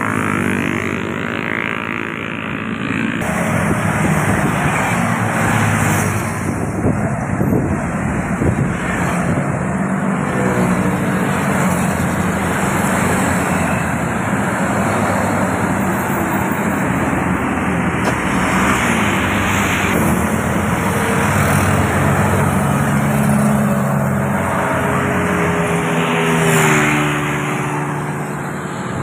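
Busy highway traffic with motorcycles, cars and intercity buses passing close by. Engine and tyre noise swells and fades as each vehicle goes by, and one passes loudest near the end.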